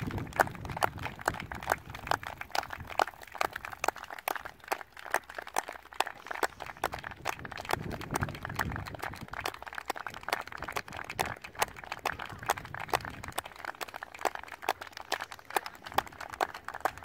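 Group of footballers applauding: many scattered hand claps, several a second, keeping up at an even level.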